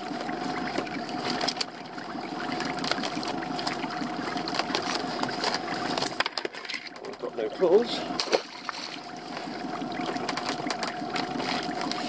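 A small fishing boat's motor running with a steady hum, with water sloshing and the knocks and rattles of a rope-and-net crab pot being handled on the gunwale. The hum drops out for a couple of seconds midway.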